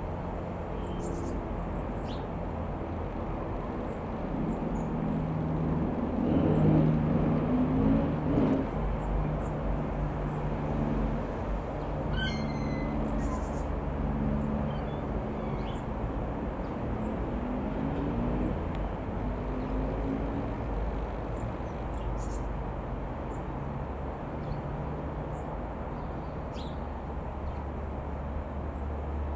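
Robin R3000/140 light aeroplane's single piston engine and propeller droning overhead, swelling to its loudest about 6 to 8 seconds in with the pitch bending as it passes, then fading and bending again as it flies off. Birds chirp briefly in the background.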